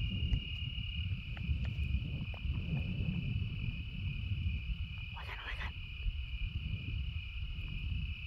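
Night insects trilling steadily at one high pitch, over wind rumbling on the microphone.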